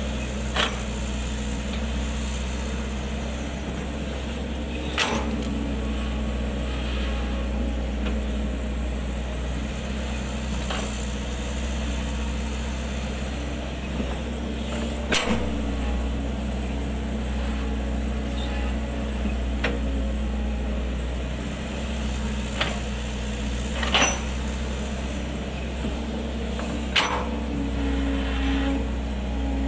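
Excavator diesel engine running steadily under load, with about five sharp knocks spread through, from the bucket and arm working.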